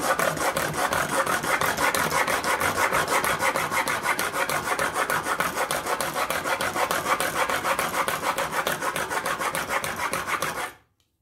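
Steel chisel bevel rubbed back and forth on a coarse sharpening plate in a fast, even rhythm of rasping strokes that stops abruptly near the end. The bevel is being ground square to correct a crooked, wrongly angled grind.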